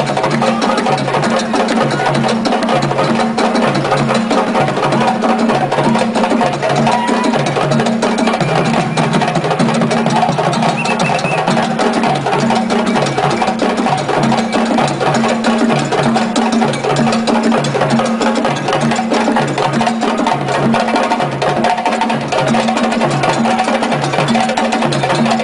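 West African drum ensemble of djembes and bass drums playing a fast, dense rhythm. Hand strokes pile up over a steady low beat that alternates between two pitches about twice a second.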